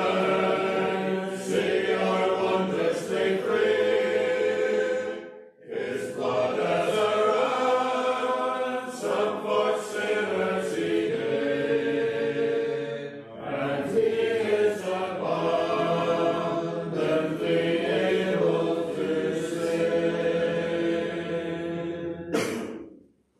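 Congregation singing a hymn together, with short pauses between lines about five and thirteen seconds in; the singing stops near the end.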